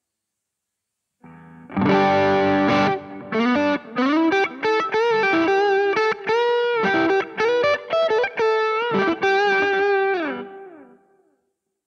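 Sterling by Music Man SiLo3 electric guitar fitted with a DiMarzio Chopper pickup, played through distortion. After about a second of silence a chord rings briefly, then a single-note lead line with string bends and vibrato follows, its last note fading out shortly before the end.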